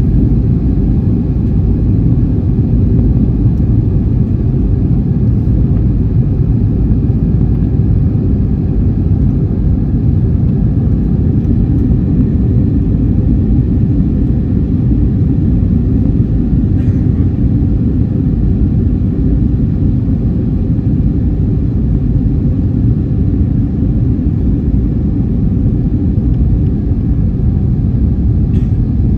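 Airplane noise: a steady, loud low drone that holds unchanged throughout.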